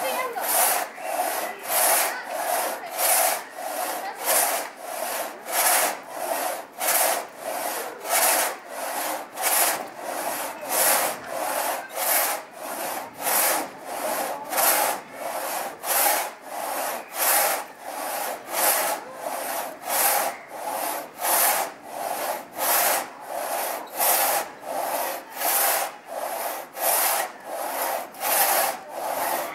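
Two-man pit saw ripping a log lengthwise, one sawyer on top and one below. It makes steady rasping strokes through the wood, about three every two seconds.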